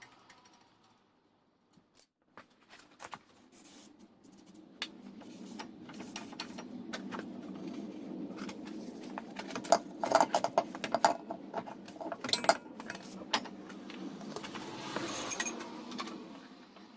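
Metal tools and parts clinking and rattling, with a dense run of sharp clicks about ten seconds in, over a steady low hum.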